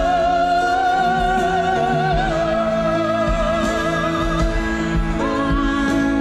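Orchestral music with a high operatic voice holding long notes with wide vibrato over sustained accompaniment. The melody steps down a little after two seconds in and leaps to a higher note about five seconds in.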